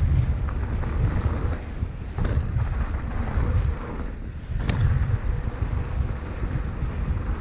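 Wind buffeting the microphone and tyres rumbling over a dirt singletrack as a mountain bike rides fast downhill, with a couple of sharp rattles from bumps about two and a half and five seconds in.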